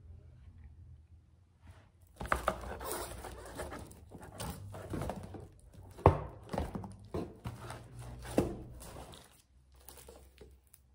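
Books and packaging being handled while rummaging in a delivery box for the next book: a run of irregular rustles, slides and knocks, with a sharp knock about six seconds in and another a couple of seconds later.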